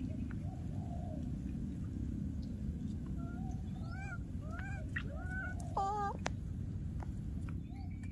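Infant monkey crying: a faint call about a second in, then a run of short, high, wavering cries from about three seconds in, the loudest near six seconds, over a steady low rumble.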